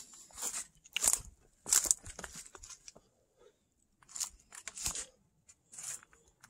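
Footsteps crunching through dry fallen leaves and loose stones, in short irregular steps with pauses between them.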